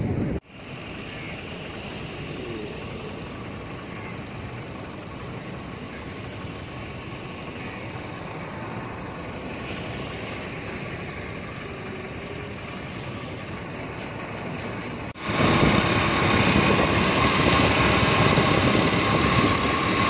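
Quiet, steady outdoor hum with a few faint chirps. About three-quarters of the way through it cuts suddenly to louder, steady road-traffic noise from a moving vehicle on a highway.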